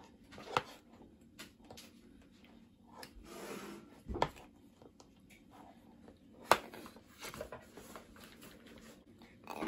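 A baby handling a plastic spoon in a high chair: a few light, sharp knocks and taps, the sharpest about six and a half seconds in, with soft rubbing and rustling in between.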